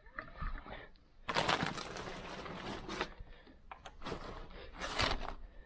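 Rustling and brushing of fiberglass attic insulation being pushed aside while a cable is fed through it: one long rustle about a second in, then two short brushes near the end.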